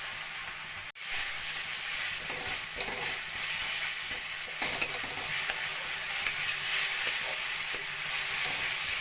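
Grated carrots frying in ghee in a kadai with palm jaggery melting into them: a steady sizzle with a spatula stirring and scraping the pan. The sound drops out for an instant about a second in.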